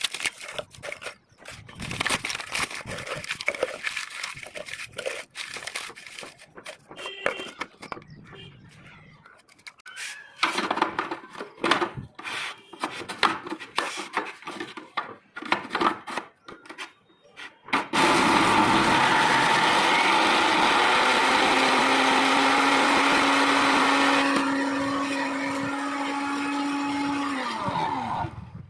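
Paper rustling and being handled, with scattered clicks and crinkles. Then, about two-thirds of the way through, an electric mixer grinder switches on and runs loud and steady, churning the paper in its jar. It drops a little in level partway and winds down with a falling hum near the end.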